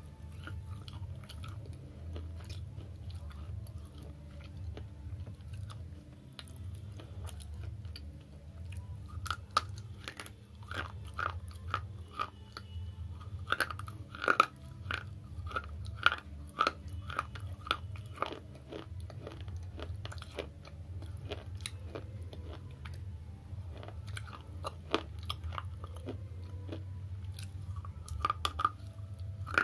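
Slate pencil pieces (slate chips) being crunched and chewed: dry, crisp crunches, densest from about a third of the way in to past the middle. They thin out, then come again as a fresh piece is bitten off near the end, over a steady low hum.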